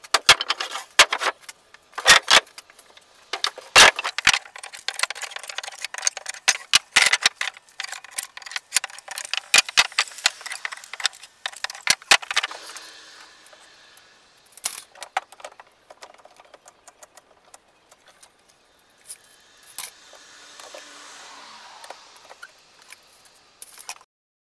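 Pallet-wood boards clattering and knocking against each other and the workbench as they are handled: a rapid run of sharp wooden clacks that thins out about halfway through into occasional knocks and faint rustling.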